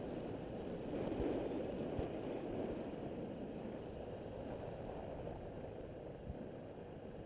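A TaoTao CY150 scooter underway, its engine running under a steady rush of wind over the microphone. The sound swells about a second in, then eases off slightly.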